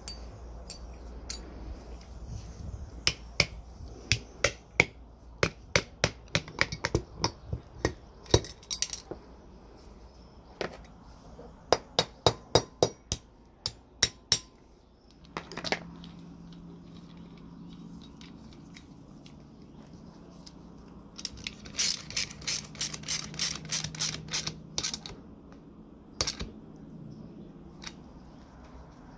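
Metal parts of a chain hoist being fitted together by hand: sharp metallic clicks and clacks in irregular runs, then a quicker run of clicks, about four a second, around two-thirds of the way through. A low steady hum starts about halfway.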